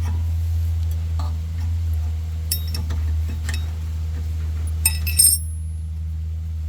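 Small metallic clicks and clinks of a steel caliper bolt and tool being handled while the bolt is threaded in by hand, with a cluster of sharper, ringing clinks about five seconds in. A steady low hum runs underneath.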